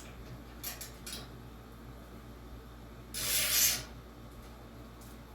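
Hand tools working on a box fan's motor bolts: a couple of light metal clicks, then a short rasping burst lasting under a second.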